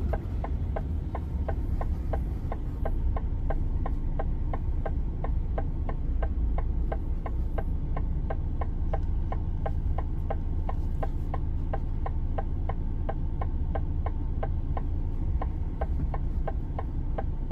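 Truck's turn-signal indicator ticking at an even rate of about two to three clicks a second, over the steady low drone of the engine in the cab.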